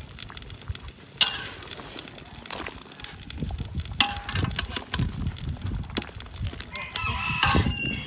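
Metal spatula knocking and scraping against a steel wok of simmering braised pork, with sharp clacks about a second in and again at four seconds. A rooster crows near the end.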